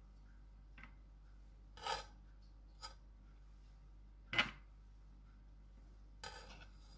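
Kitchen knife knocking on a wooden cutting board while slicing a boiled egg: about five short, separate knocks, the loudest a little past the middle.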